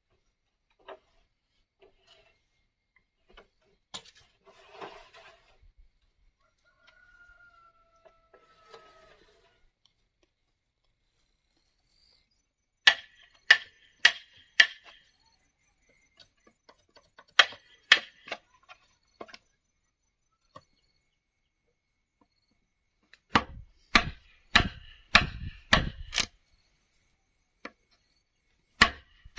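Hammer blows, probably nails being driven into bamboo or wood, coming in quick runs of several strikes with a short ringing tone, after a quiet stretch with only a few faint knocks.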